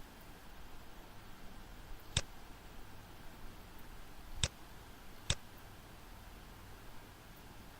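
Three sharp computer mouse clicks, about 2 s, 4.5 s and 5.3 s in, over a faint steady room hiss.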